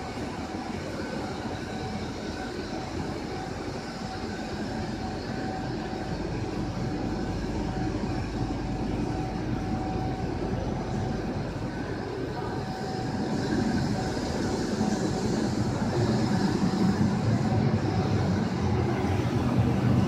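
Steady running noise of factory machinery, with a faint steady whine through it. It grows louder and deeper in the second half.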